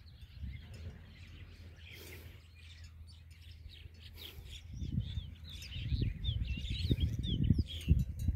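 Small birds chirping, with a run of short, quick calls in the second half, over a low, gusting rumble of wind on the microphone that grows louder toward the end.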